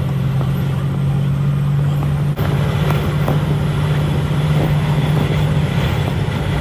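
Steady engine drone and road noise of a moving road vehicle, with a constant low hum; the sound changes abruptly about two and a half seconds in.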